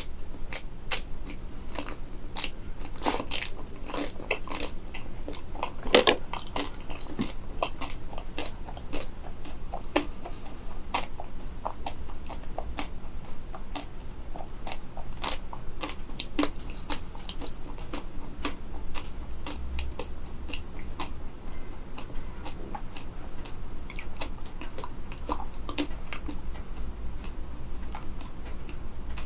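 Close-miked biting and chewing of a frozen banana with a crisp chocolate shell: irregular crunches and small cracks as the hard coating breaks, the loudest crack about six seconds in.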